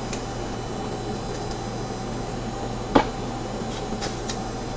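Steady hum of a running kitchen appliance, with one sharp click about three seconds in.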